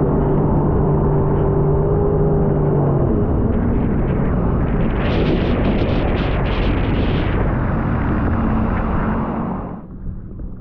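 Sea-Doo personal watercraft running at speed: a steady engine drone under a rushing noise of water. A little before the end the throttle comes off and the sound drops quickly to a low idle.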